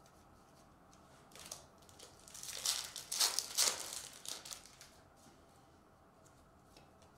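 Topps baseball card pack wrapper crinkling as it is torn open and the cards are pulled out, loudest from about two to four and a half seconds in. Soft clicks of cards being handled come before and after.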